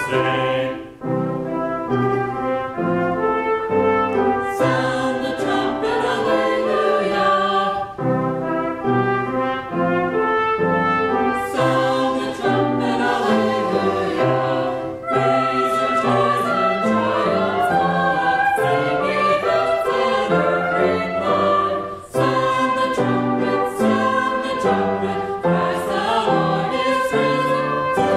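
Small mixed church choir singing a hymn-like anthem with a trumpet playing alongside, in phrases with short breaks about every seven seconds.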